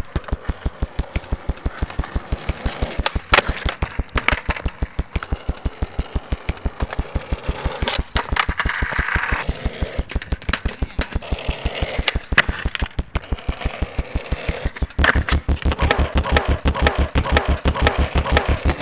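Electronic background music with a fast, steady pulsing beat of about five pulses a second, growing heavier in the bass about fifteen seconds in.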